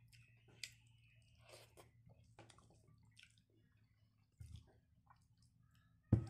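A person chewing a mouthful of food, with soft wet clicks and squishes. A dull thump comes about four and a half seconds in, and a louder one near the end.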